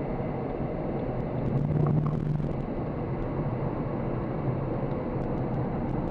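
Audi sports car's engine running hard under full throttle as the car accelerates, heard from inside the cabin with road and tyre noise.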